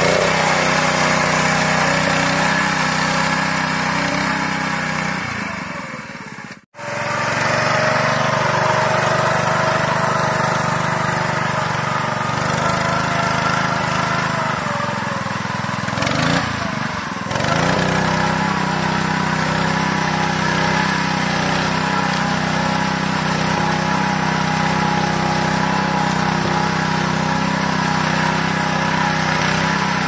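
Small engine of a walk-behind rice reaper running steadily under load as it cuts standing rice. The sound breaks off for a moment about seven seconds in.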